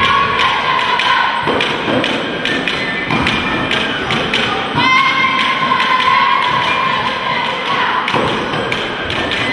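Rhythmic thuds and knocks from a Romanian capra (goat) dance troupe, over a wind instrument holding a long high note twice.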